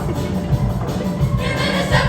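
Music from a junior high girls' choir performance: a pulsing low percussion beat, with the choir's voices coming back in about one and a half seconds in.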